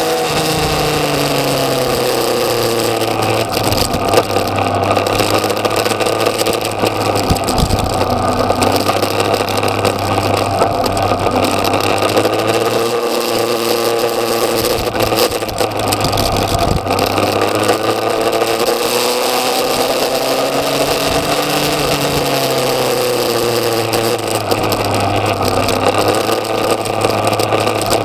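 Yamaha XJ6's inline-four engine heard from on board while riding, its pitch rising and falling again and again as the throttle is opened and closed through the bends. Wind noise on the microphone throughout.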